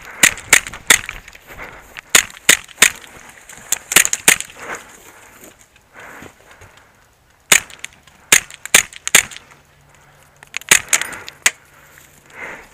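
Airsoft gunfire: a string of sharp cracks, mostly in quick groups of two or three, with a lull around the middle.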